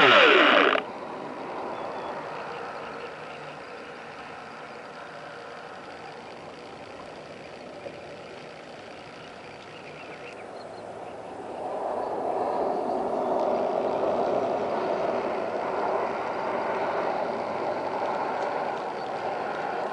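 Muffled steady water and motor noise from a remote-controlled underwater camera craft moving through the water. It grows louder about halfway through. It opens with a loud pitched sound that falls away within the first second.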